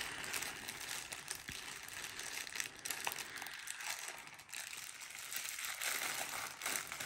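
A thin plastic packaging bag crinkling and rustling as it is handled and pulled at to get it open, with irregular crackles.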